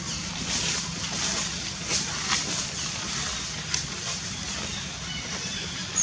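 Steady wind rumble on the microphone, with dry leaves crackling briefly a few times.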